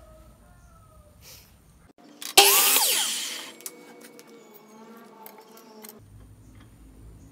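Stanley sliding compound miter saw cutting through a thin wooden strip: a sudden loud cut about two seconds in that fades over about a second, then a fainter whine as the blade spins down.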